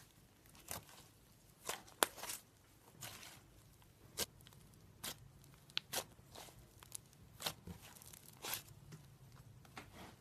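Slime being played with: irregular sharp pops and clicks, roughly one or two a second, with the loudest pop about two seconds in.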